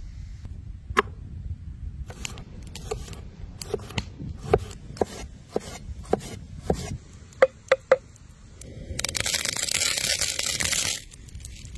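A cleaver chopping ginger into thin strips on a wooden cutting board: a run of sharp knocks, ending in three quick hard strokes. Then about two seconds of salt flakes sprinkling down, a dense hiss.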